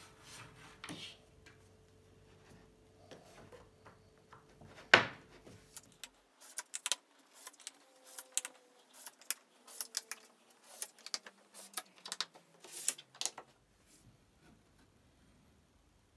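Neodymium disc magnets clicking as they are slid off a stack on a steel plate and snapped into drilled holes in an oak board: a string of sharp metallic clicks, with one loud snap about five seconds in and a quick run of clicks after it that stops a couple of seconds before the end.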